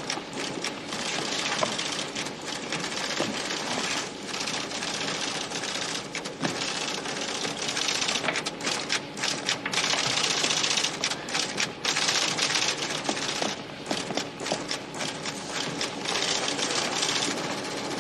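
Typewriter-style computer printer chattering away as it prints out a long record, a fast continuous run of key strikes with short pauses between lines.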